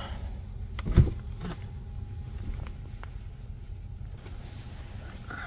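A Tesla Model Y's door being opened from inside: one sharp thump about a second in, a few lighter clicks around it, and a low steady hum underneath.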